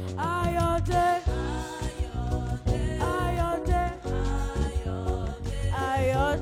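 A song: a voice singing a melody that slides between notes, over instrumental backing with a sustained bass.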